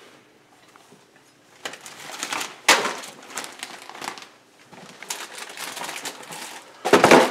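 Rummaging through a pantry: snack packages crinkling and containers knocking against wire shelves, in irregular bursts after a quiet first second and a half. There is a sharp knock about three seconds in and a loud burst of rustling near the end.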